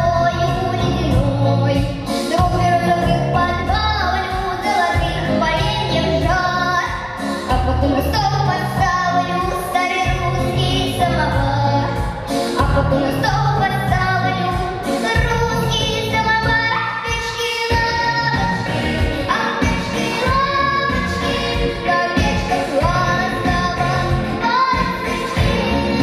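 A young girl singing a pop song into a handheld microphone, amplified, over a recorded backing track with a steady beat.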